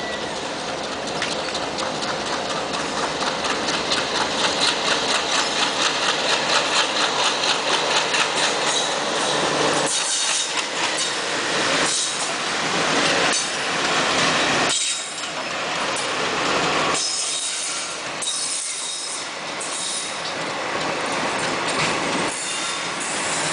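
A passenger train hauled by twin WDM3D diesel locomotives passing close by: the engines run past over the first half, then the coaches roll by with a rapid clickety-clack of wheels over the rail joints.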